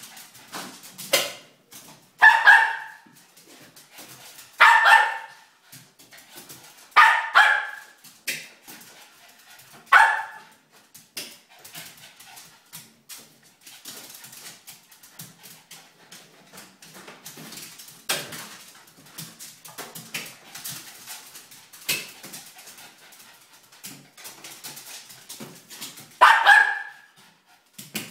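A Shoodle (a shih tzu–poodle cross) barking in play at balloons. It gives short single barks every two to three seconds at first, then pauses for a long stretch with only faint taps and scuffles, and barks once more near the end.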